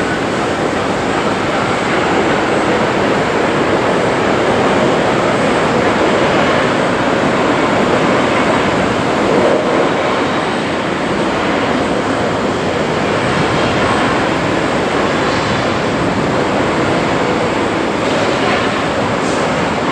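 Steady, even rushing background noise with no distinct tones or knocks, holding at one level throughout.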